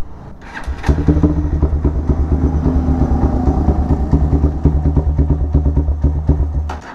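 Motorstar Z200 200 cc motorcycle engine, in a custom chopper build with twin chrome exhaust pipes, starting up about a second in and then idling steadily with a rapid, even exhaust pulse.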